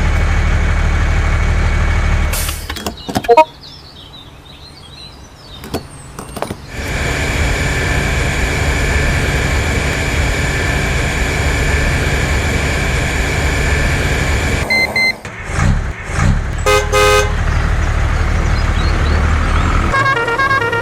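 A vehicle engine runs steadily with a low rumble. It drops away for a few seconds after a sharp bang about three seconds in, then comes back. A few short horn toots sound about two-thirds of the way through, and a repeating beep starts near the end.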